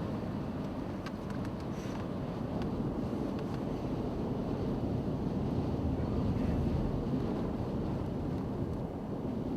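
Steady low rumble of a four-wheel-drive vehicle's engine and tyres on snow, heard from inside the cabin while driving slowly in blizzard conditions, with a few faint ticks about a second in.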